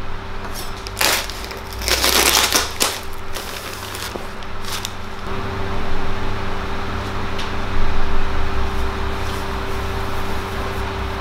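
Cotton T-shirt being handled and shaken out close to the microphone: bursts of fabric rustling, loudest about two to three seconds in, over a steady low hum.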